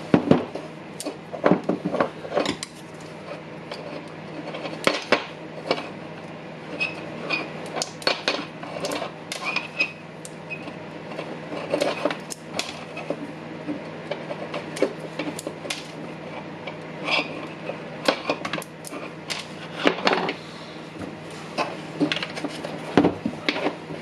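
Irregular clicks, clinks and knocks of hand tools and small parts of a cordless impact driver being handled on a workbench, over a steady low hum.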